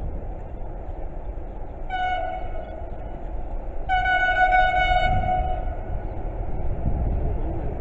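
Horn of an approaching train sounded twice: a short blast about two seconds in, then a longer one about two seconds later, each a single steady tone. A low rumble runs underneath.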